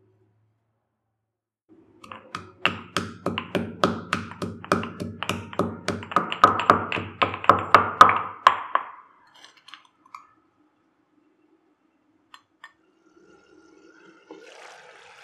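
Stone pestle pounding dry-roasted cumin, fennel seeds and black peppercorns in a stone mortar: steady strokes at about three a second for some six seconds, growing louder toward the end before stopping.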